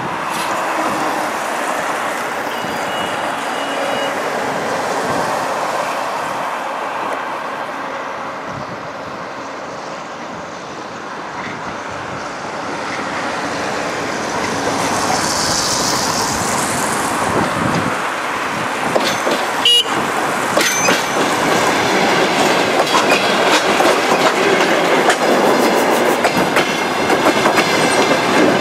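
DR1A diesel multiple unit with a track measurement car approaching and drawing steadily louder, its diesel running, with a short high-pitched sound about halfway through. Near the end it passes close by, and the wheels clatter over the rail joints in quick repeated clicks.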